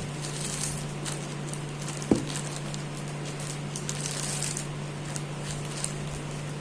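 An HP wireless keyboard being handled during unboxing: light crinkling and small ticks, with one sharp knock about two seconds in, over a steady low hum.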